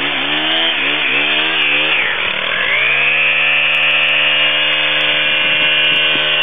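Small gas engine of a pole hedge trimmer revving in quick throttle pulses, dipping briefly, then held at a steady high rev from about three seconds in as the trimmer cuts into a shrub.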